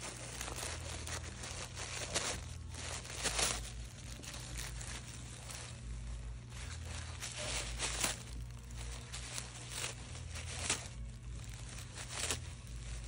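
White tissue paper crinkling and tearing in irregular rustling bursts as a small dog chews and noses through it, with a few sharper rips along the way.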